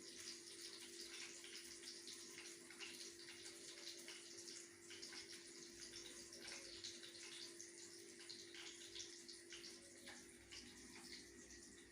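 Faint running water with a fine crackly texture, over a steady low hum.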